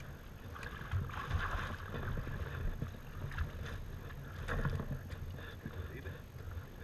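Water splashing and sloshing as a retrieving dog swims through the shallows close by, loudest in the first few seconds, over a low rumble.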